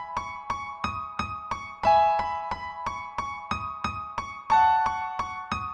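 Background music: electric piano chords over a steady beat of about three clicks a second, with a louder chord about two seconds in and another about halfway through.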